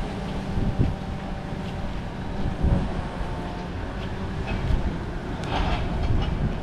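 Wind buffeting the microphone in gusts, with a faint steady hum underneath.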